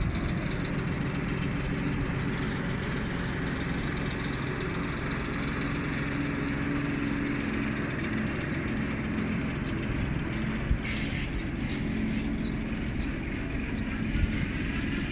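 Cargo barge's diesel engine running steadily as the boat motors down a lock channel, a low drone under a wash of noise.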